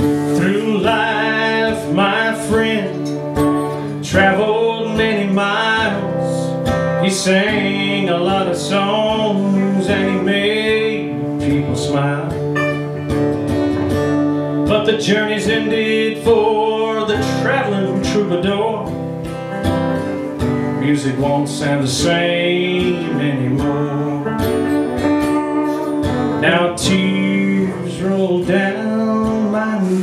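Acoustic guitar strummed steadily with an electric guitar playing lead lines over it, a live two-guitar performance of a song.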